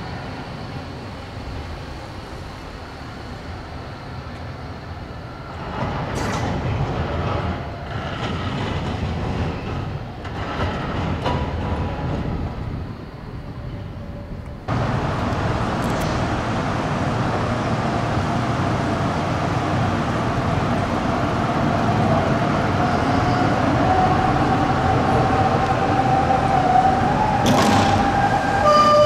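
Electric trams in a city street: a low-floor Bombardier Cobra tram hums as it approaches, followed by mixed street and rail noise. About halfway through, the sound changes abruptly to the rumble of a Tram 2000 tram, its electric motor whine holding steady and slowly rising in pitch.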